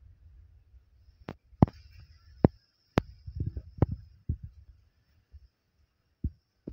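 Sharp isolated clicks and soft knocks at a single-needle industrial lockstitch sewing machine as the fabric pieces are positioned under the presser foot, with a faint thin high tone in the middle; the machine does not run a seam.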